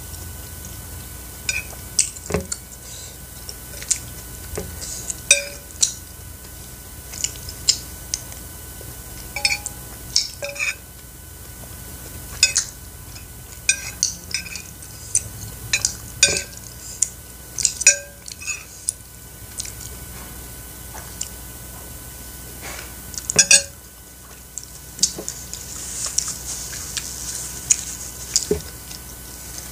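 Metal spoon scraping and clinking against a ceramic plate while the last rice cakes and sauce are scooped up, in many short, irregular scrapes and taps with a brief ring.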